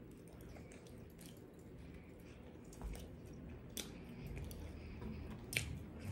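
A person faintly chewing a bite of fried fish sandwich close to the microphone, with a couple of sharp mouth clicks in the second half.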